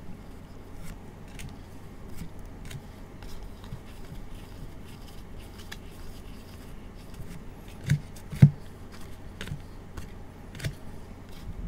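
Gloved hands sliding and flicking through a stack of Topps Chrome trading cards, a steady run of soft clicks and scrapes of card against card. Two louder taps come about eight seconds in.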